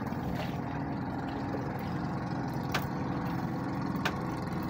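Small boat engine idling steadily with a low hum, with two sharp clicks, the second near the end.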